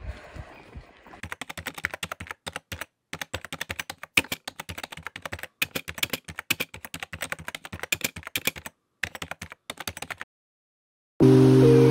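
Typing sound effect: rapid key clicks in runs with short pauses, starting about a second in and stopping near the end. Music with held notes comes in loudly right after.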